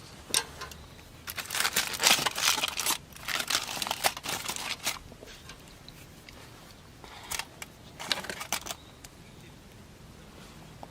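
Crinkling and rustling of material being handled, in several short irregular bursts, most of them in the first five seconds.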